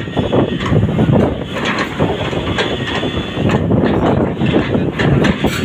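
Crawler excavator's diesel engine running under load while its toothed bucket scrapes and pushes dry soil into a mound, with frequent short scrapes and knocks over the steady engine noise.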